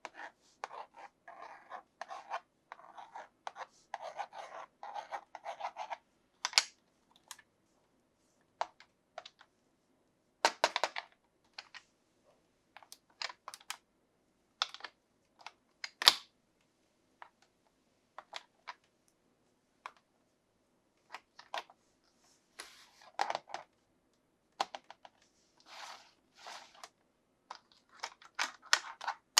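Toy packaging and plastic parts handled by hand: short bursts of crinkling and scratching, then scattered sharp clicks and taps with pauses between.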